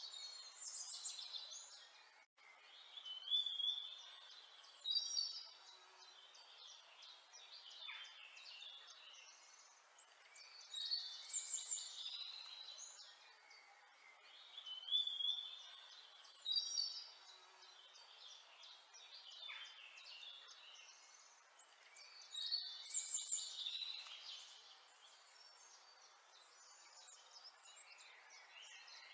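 Birdsong: high chirps and trills in short clusters every few seconds over a faint hiss, the same phrases recurring like a looped nature recording.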